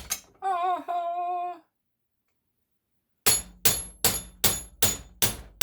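A hammer striking metal, seven hard blows at an even pace of about two and a half a second, each with a short high ring. They start about three seconds in, after a short wavering hummed tone at the beginning.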